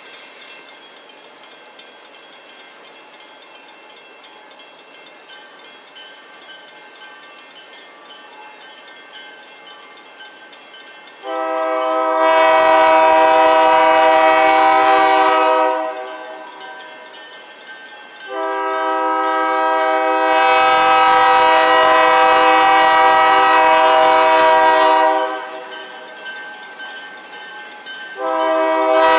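Freight diesel locomotive's multi-chime air horn sounding for a grade crossing: two long blasts about eleven and eighteen seconds in, then a shorter blast starting near the end, the start of the standard long-long-short-long crossing signal.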